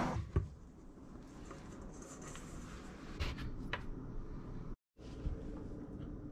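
Quiet kitchen handling sounds: a few soft taps and knocks as a metal measuring cup and a round metal cutter meet dough and a granite counter, over a low steady room hum. The sound drops out for a moment about three-quarters of the way through.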